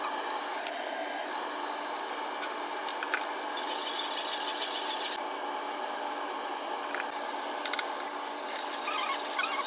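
A metal spoon stirring and scraping round a steel pot of sugar syrup as the sugar dissolves, with a few light clinks of metal on metal. A harsher rasp of scraping comes about four seconds in, over a steady hiss.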